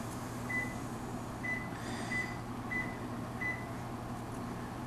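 Veterinary anesthesia monitor beeping in time with the anesthetized dog's pulse: five short, high beeps at irregular spacing of about one every 0.6 to 0.9 s, over a low steady hum.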